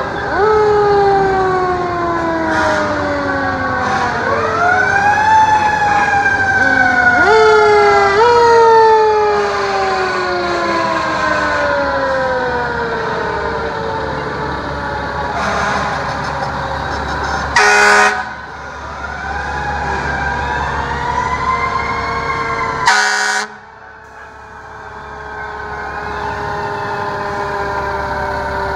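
Fire engine sirens wailing in long slow glides, winding up and falling away over and over as the trucks pass. Two short, loud horn blasts come in the second half, over the low rumble of the truck engines.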